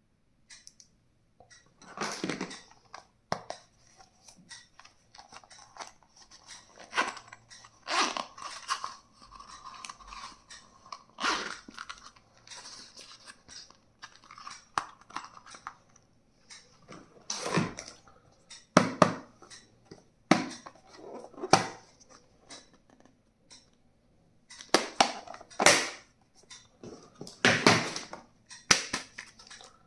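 Packaging and stationery being handled while unboxing: irregular crinkling, tearing and crunching with sharp plastic clicks and knocks.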